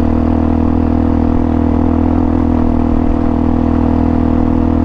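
Hawk 250 dual-sport motorcycle's single-cylinder engine running at a steady, constant speed while being ridden, heard from on the bike.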